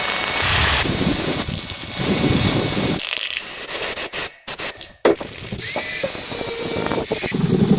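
Mechanical clicking and rattling of tools at work, in short stretches broken by abrupt cuts.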